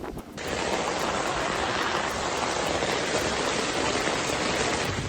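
Heavy rain pouring down, a steady even hiss that starts abruptly about half a second in.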